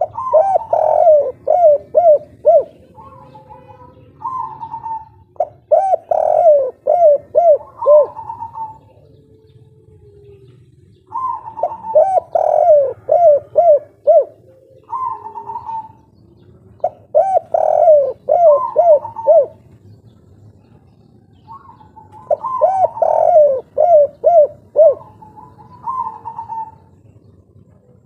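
Spotted dove (tekukur) cooing in the 'kuk 3' song type, repeating its song about five times. Each phrase is a rapid string of short, hollow coo notes lasting two to three seconds, with pauses of a few seconds between phrases.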